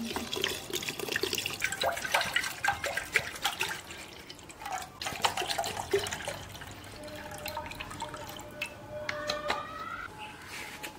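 Water poured from a plastic bottle into a clay pot of kadhi and then into a steel saucepan, splashing in many short spurts, with a tone that rises in pitch near the end.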